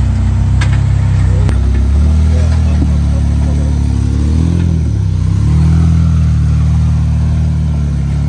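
An off-road vehicle's engine pulling under load, its revs rising and falling, with a sharp click about a second and a half in.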